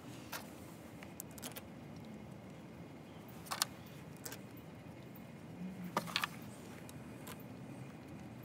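Light metallic clicks and taps of bolts being set and started by hand in a freewheeling hub's flange on a Land Rover wheel hub. A few scattered clicks, the sharpest pair about three and a half seconds in and a short cluster around six seconds, over a faint steady hum.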